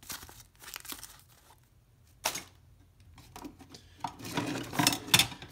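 Plastic packaging being handled: scattered crinkling and rustling, a sharp crackle about two seconds in, and a louder run of crinkling from about four seconds in.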